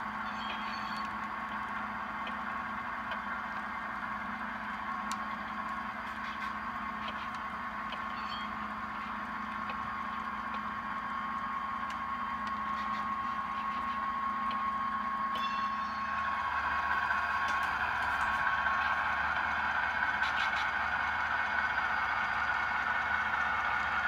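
Sound-equipped HO scale model diesel locomotives, their SoundTraxx Tsunami2 decoders playing diesel engine sound through small on-board speakers, with light clatter from the model train on the track. About two-thirds of the way in the sound changes and grows louder as a locomotive approaches.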